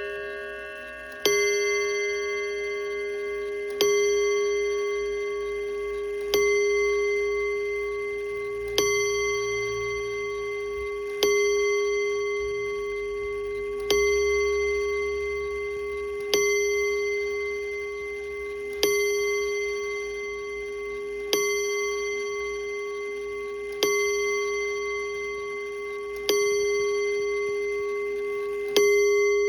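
Seth Thomas Sonora chime clock striking the hour on a single bell: twelve slow, evenly spaced strokes about two and a half seconds apart, each left ringing until the next. The last notes of the four-bell chime are still dying away as the strike begins.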